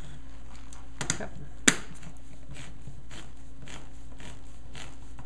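Old-style handheld can opener cutting around a can lid: a string of short clicks as the key is turned, with one sharp louder click a little under two seconds in.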